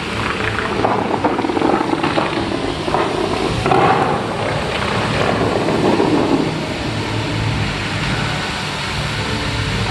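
Fountain water jets spraying and falling back into the pool: a steady rushing and splashing like heavy rain, swelling a little now and then.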